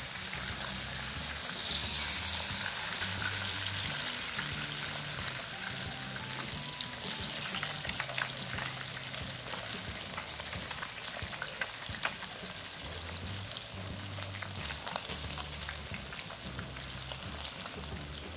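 A whole tilapia shallow-frying in a little hot oil in a nonstick pan, sizzling steadily with scattered crackles and pops. There is a brief surge of louder hiss about two seconds in.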